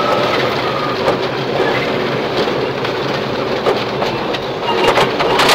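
Subaru Impreza rally car's flat-four engine running hard at speed on a gravel stage, heard from inside the cabin, under a steady loud rush of tyre and gravel noise with rattling.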